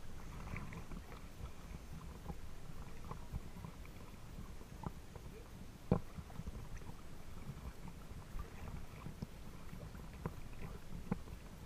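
Water lapping and sloshing right against a camera at the water's surface: a low rumble with scattered small splashes and ticks, and one sharp knock about six seconds in.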